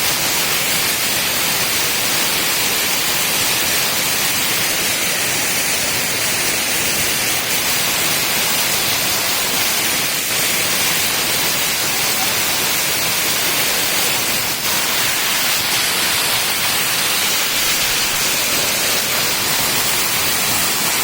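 Waterfall: falling water rushing in a loud, steady roar with no breaks.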